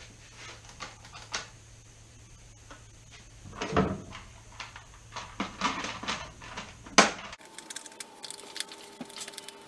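Scattered clicks, taps and knocks of chainsaw parts being handled and fitted back together, with a louder knock about four seconds in and a sharp click about seven seconds in.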